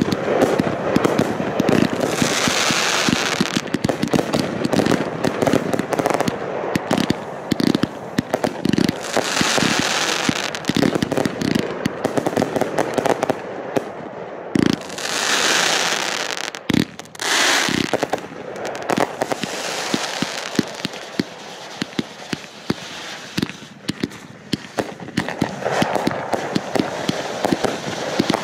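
Fireworks crackling and popping in a rapid, dense stream. Several hissing surges rise and fall along the way, about two, ten and fifteen to eighteen seconds in.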